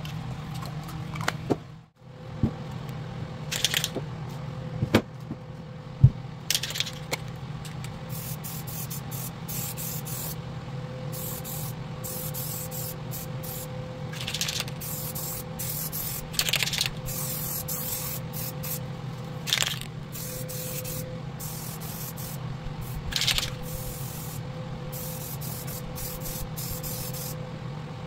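Aerosol spray-paint can hissing in repeated short bursts as grey paint is sprayed onto welded steel frames. A few sharp knocks come in the first seconds, over a steady low hum.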